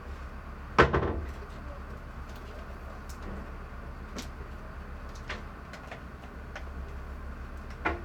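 Plastic suction cupping cups knocking and clicking against each other as they are handled. There is one sharp clack with a short ring about a second in and a few lighter clicks later, over a steady low hum.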